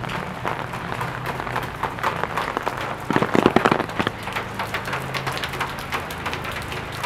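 Rain pattering as irregular ticks, with a denser, louder spell about three seconds in, over a low steady hum.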